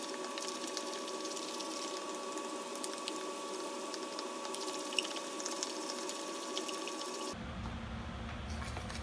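A spoon stirring a runny batter of beaten egg, sugar and rice flour in a small bowl, with scattered light clicks over a steady hum. The sound cuts off suddenly about seven seconds in.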